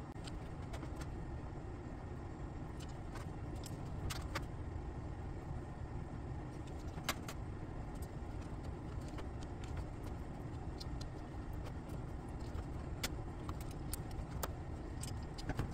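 Faint, scattered light metallic clicks as pump vanes are dropped into the rotor slots of a 4L60E automatic transmission pump, over a steady low hum.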